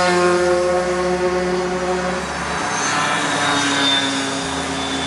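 A vehicle engine running with a steady drone. Its pitch falls slightly at the start, and about two and a half seconds in it shifts to a different steady tone.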